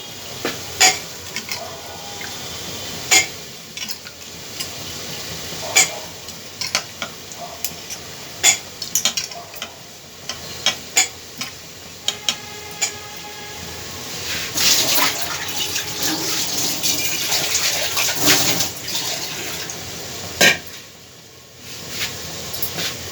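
A metal spoon clinking and scraping against a pressure cooker as washed potatoes are stirred into frying masala, with a steady hiss for several seconds past the middle.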